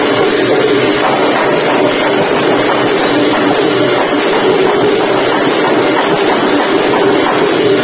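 Thai klong yao long drums struck by hand, played together with cymbals and a gong: a loud, dense, unbroken din of drumming.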